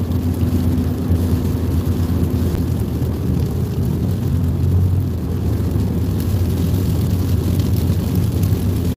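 A car driving at highway speed, heard from inside the cabin: a steady low rumble of road and engine noise.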